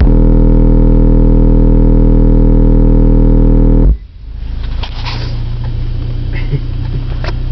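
A 40 Hz test tone played through a pair of 12-inch Pioneer subwoofers: a very loud, steady deep hum with buzzing overtones for about four seconds, then cut off abruptly.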